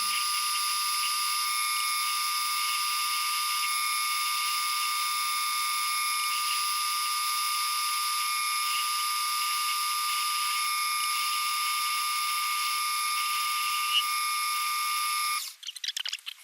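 Small metal lathe running with a steady high-pitched whine while turning down a small part. The sound drops out briefly about a second before the end.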